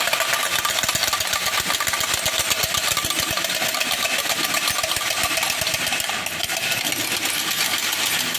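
Wooden matraca, the Holy Week clapper rattle used instead of bells, being sounded: a fast, steady clatter of many knocks a second.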